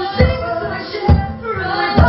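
Live band music: singing held over the band, with a low drum thump on the beat about once a second.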